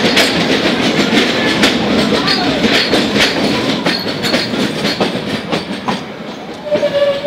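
Metre-gauge passenger train running, heard from an open coach doorway: wheels clattering over the rail joints, loud inside a tunnel, then dropping in level as the coach comes out into the open about five or six seconds in.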